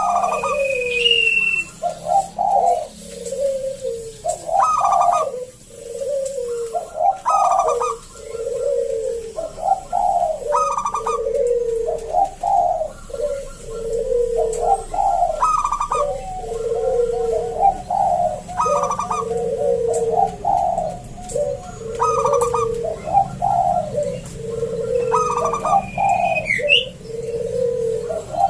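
Zebra dove (perkutut) cooing over and over, a full, deep-voiced phrase about every two seconds. A faint higher whistle of another bird sounds briefly about a second in and again near the end.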